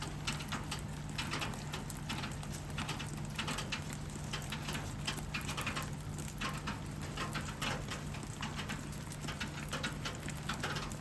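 Light rain pattering: many individual drops tapping irregularly and close together, over a steady low hum.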